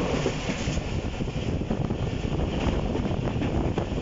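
Passenger train running at speed, heard from an open carriage window: a steady rumble of wheels and carriage, with wind buffeting the microphone.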